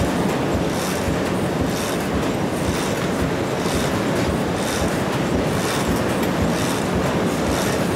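Huatai HT1500P automatic die cutting and stripping machine running: a steady mechanical noise with a brighter pulse repeating about once a second as the machine cycles.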